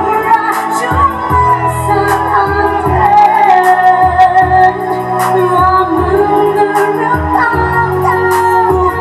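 A woman singing a held, flowing melody into a microphone, amplified through the hall's speakers, over music with a steady drum beat and bass.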